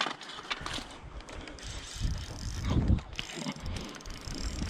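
Shimano Vanford spinning reel working under load while playing a big fish, a rapid mechanical ratcheting of the reel. A low rumble rises about two seconds in.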